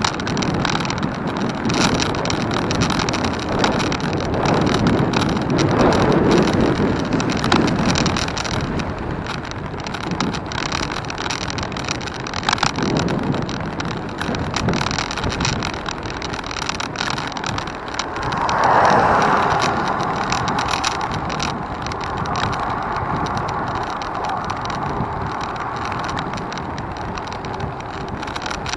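Road noise with wind on the microphone, as while travelling along a road. A louder rushing sound comes in sharply about two-thirds of the way through and stays.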